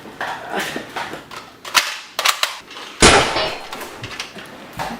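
Gunshot-like bangs: several quick sharp cracks in the first half, then one loud shot about three seconds in that rings out for most of a second.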